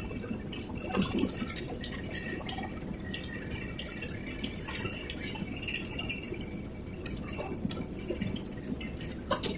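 Belt-driven rag-shredding machine running steadily while it tears up old cloth, a continuous mechanical clatter with quick metallic clinks and rattles.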